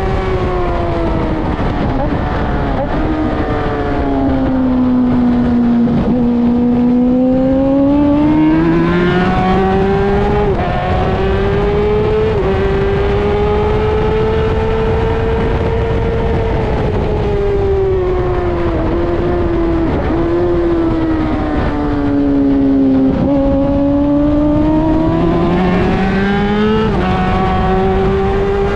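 Motorcycle engine working hard around a race track, its pitch falling as it slows for corners and climbing again under acceleration, with several quick breaks in the note as it shifts gear, over steady wind and road noise.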